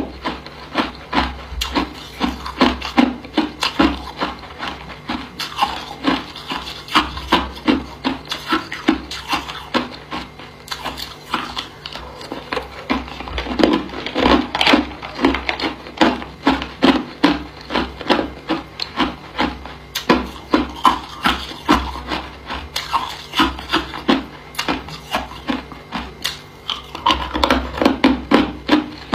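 Hard ice being chewed close up, a steady run of crisp crunches about two or three a second.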